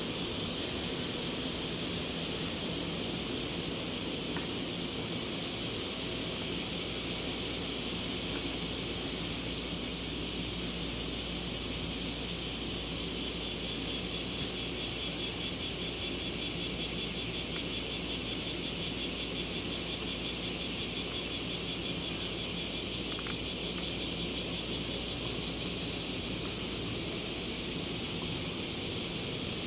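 Steady open-air railway platform ambience: a constant low hum and hiss, with a high, fast-pulsing insect buzz that grows clearer about ten seconds in.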